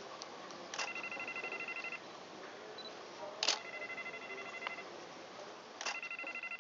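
Three times, a sharp click followed by about a second of a fast, pulsing trill of steady tones, like a ringing signal.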